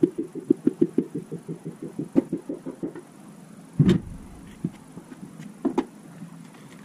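Hand tool working on a bare 350 short block on an engine stand: a quick run of metallic clicks, about eight a second, for some three seconds, then a heavy thump and a few single knocks.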